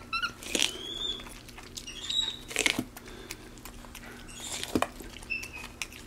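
Capuchin monkey eating corn on the cob: wet chewing and crunching of the kernels, with a few sharper crunches, and several short high squeaks in between.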